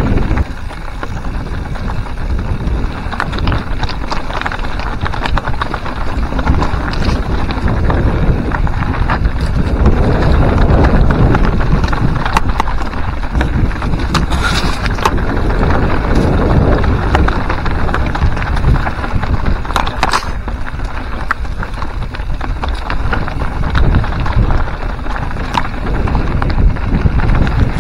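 Mountain bike ridden along a rough dirt singletrack: wind rushing over the camera microphone, tyres crunching on gravel and the bike rattling over bumps, with many small clicks and knocks. Around the middle, leaves and branches brush past the camera with a louder swish.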